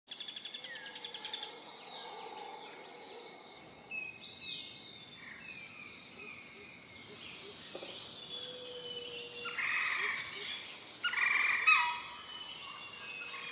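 Small songbirds chirping and calling, several overlapping calls: a fast trill at the start and louder, sharper chirps around ten to twelve seconds in.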